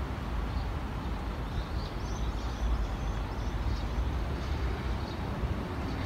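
Steady low outdoor background rumble with faint, short, high chirps now and then.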